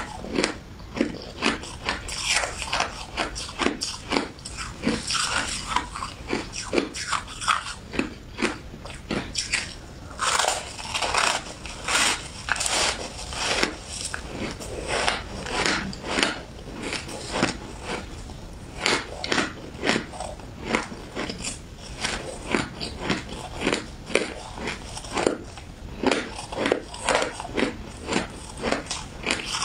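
Close-up chewing of shaved ice: a steady run of crisp crunches, several a second, as the ice is bitten and ground between the teeth.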